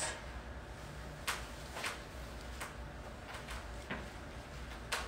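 Low, steady room noise with five or six faint, scattered clicks and taps, the last one, near the end, the sharpest.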